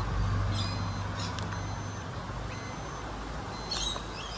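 A wireless meat thermometer gives a few faint short high beeps about one and two seconds in, its alarm that the pork has reached temperature. A bird chirps near the end, over a steady low background hum.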